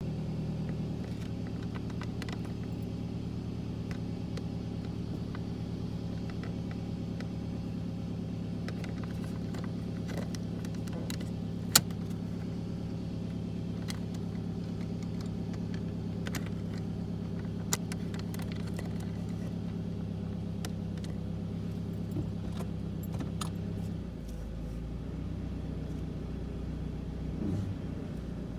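2004 Toyota RAV4 running with a steady engine drone and a light, intermittent rattling with scattered clicks and a couple of sharper knocks; the rattle comes from a loose heat shield. The drone changes and drops near the end.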